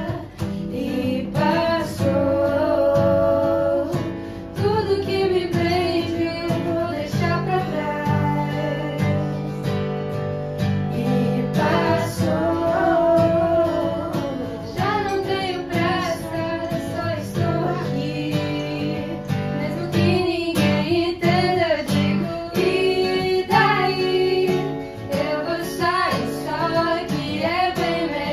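Women singing a Portuguese-language pop song, accompanied by an acoustic guitar.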